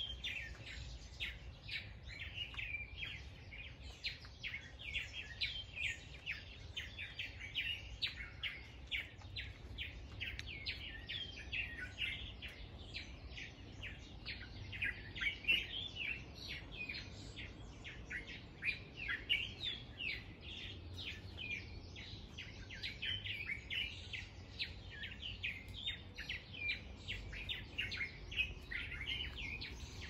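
Dawn chorus: many birds chirping and calling over one another in a dense, continuous stream of short high chirps.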